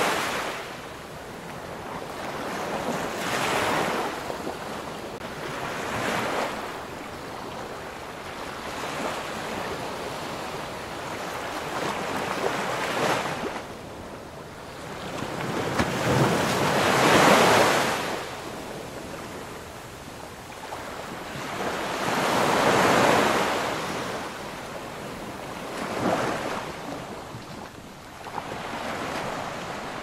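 Ocean surf: waves breaking and washing in, swelling and fading every few seconds, with the biggest surges in the second half. Some wind noise runs under it.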